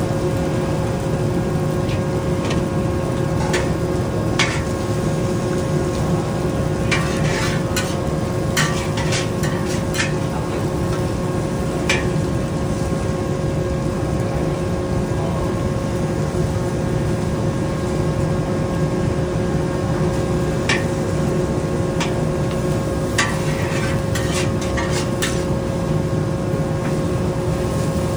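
Noodles and bean sprouts frying in a wok over a steady, loud gas-burner rush with a constant hum. A metal ladle scrapes and clacks against the wok now and then, in a quick cluster about a third of the way in and again near the end.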